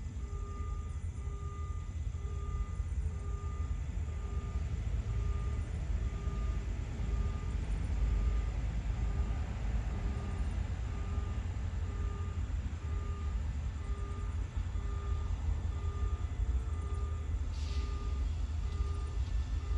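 An electronic warning beep repeating about once a second, over the steady low rumble of an approaching diesel-hauled train, with a short hiss near the end.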